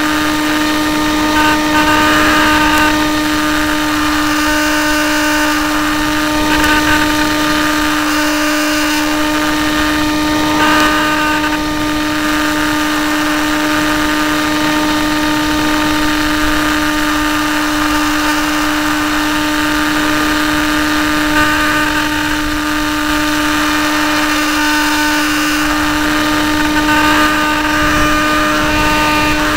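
Hawk Sky RC plane's electric motor and propeller giving a steady, unchanging drone, with wind rushing past the onboard camera.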